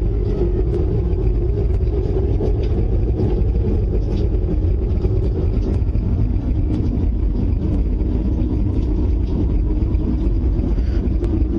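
Steady low rumbling drone with no breaks, one of the recordings passed around as the unexplained 'strange sounds' heard in the sky.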